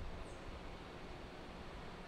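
Steady low rumble of city traffic on wet streets, with one brief high chirp about a quarter second in.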